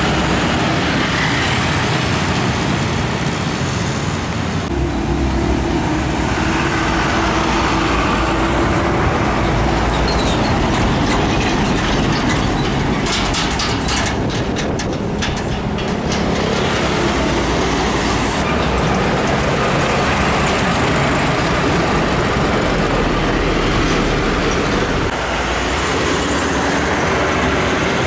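Heavy road traffic passing close by: loaded trucks and motorcycles with their engines running and tyres on the road. About halfway through comes a brief spell of rapid rattling.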